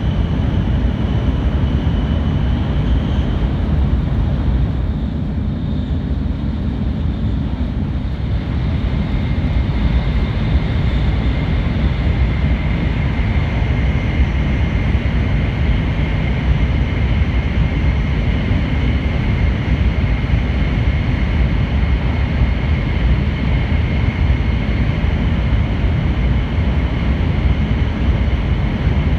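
N700-8000 series Shinkansen running at speed, heard from inside a passenger car: a steady deep rumble of wheels, track and air. A thin high whine sets in about nine seconds in.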